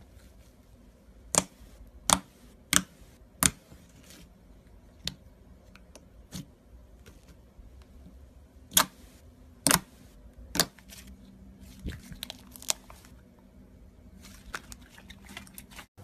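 Slime being squeezed and poked by hand, giving sharp clicking pops one after another, about a dozen of them, with quicker, smaller crackles near the end.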